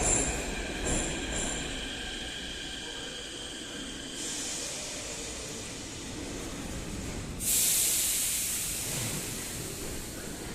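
Inside a St Petersburg-built 81-717 'numbered' metro car: the running noise dies away with some fading high-pitched whine and a few clicks. About seven and a half seconds in, there is a sudden loud hiss of compressed air that slowly tails off.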